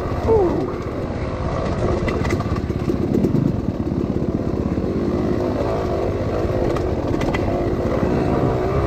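Dirt bike engine being ridden, its revs rising and falling with the throttle, with a quick rev that drops away just after the start.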